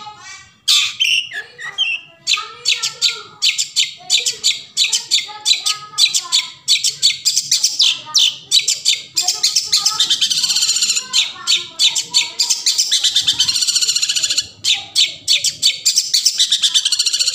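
Long-tailed shrike (cendet) singing a fast, harsh chattering song of rapid high notes, which runs into a continuous buzzing trill about ten seconds in.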